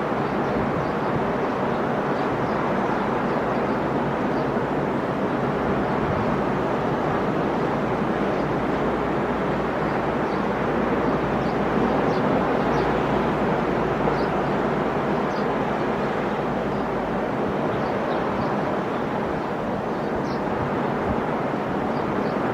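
Sea surf breaking and washing continuously on a beach, a steady dense rush of waves that swells a little about halfway through.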